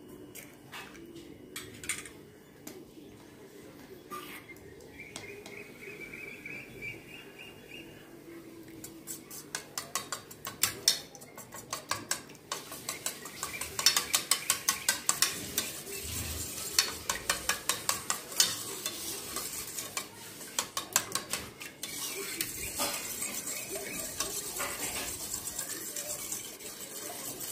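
Steel spoon beating eggs and yogurt in a stainless steel bowl: a few scattered taps at first, then from about ten seconds in quick, regular clinks of the spoon against the metal, several a second, turning into a smoother swishing stir near the end.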